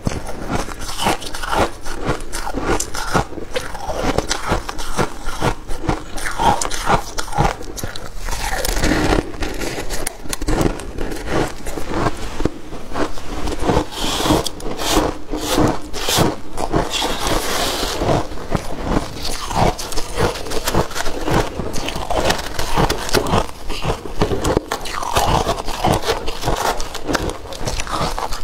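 Freezer frost being bitten and chewed: a continuous run of crunches and crackles.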